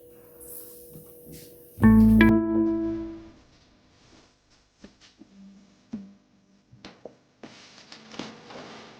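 Background piano music: a soft held note, then a loud chord about two seconds in that dies away, followed by a few faint clicks.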